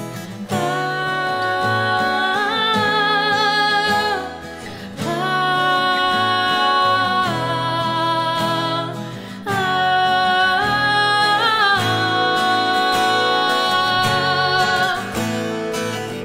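A woman singing long, held wordless 'ah' notes with vibrato over acoustic guitar, in three phrases.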